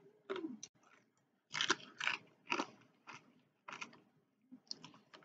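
Close-up chewing of crunchy rolled tortilla chips (Takis): about a dozen short, uneven crunches as the mouthful is bitten and ground.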